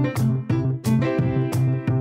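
Background music led by keyboard, with a steady beat.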